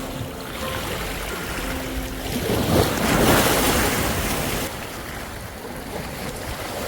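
Sea waves washing, with wind buffeting the microphone; a louder surge of water comes about two and a half seconds in and lasts about two seconds.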